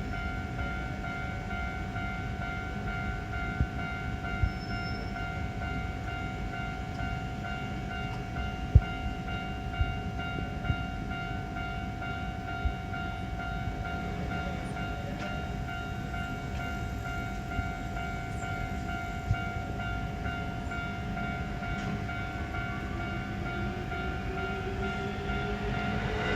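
Japanese level-crossing alarm ringing steadily, with a few sharp knocks along the way. Near the end a Hankyu train approaches and grows louder.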